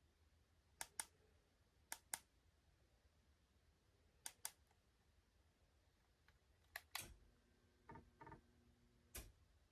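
Faint sharp clicks over near silence, mostly in quick pairs every second or two, with a faint low hum under the clicks near the end.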